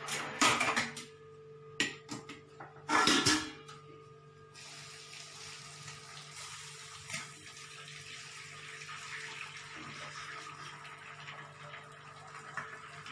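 A few metal clanks and knocks as the steel pot is handled. Then, from about four seconds in, a steady pouring rush as boiled rice and its hot starchy cooking water are poured from the steel pot into a perforated steel strainer, draining the rice.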